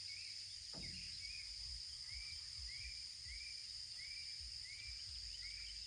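Outdoor insect chorus: a steady high-pitched drone, with a short chirp repeating about twice a second over a faint low rumble.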